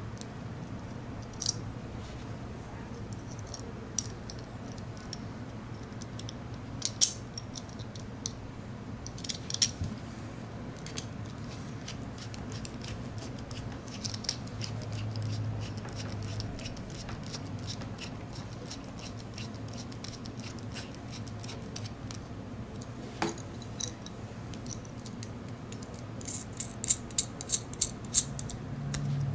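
Scattered light metal clicks and clatters of small aluminium robot-kit beams, brackets and screws being handled and screwed together with a small screwdriver, with a quick run of clicks near the end. A steady low hum lies underneath.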